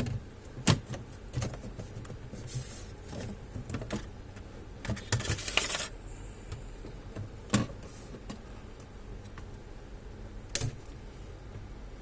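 Scattered clicks and knocks of small plastic and metal computer parts being handled, with two short scraping sounds: hands at work on the Dell OptiPlex 5260 all-in-one PC.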